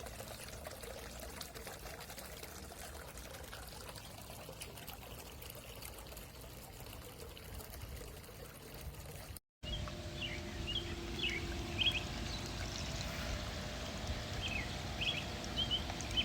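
Water from a small solar fountain pump splashing and trickling in a bird bath. After a short break a little past halfway, short high chirps sound over the water.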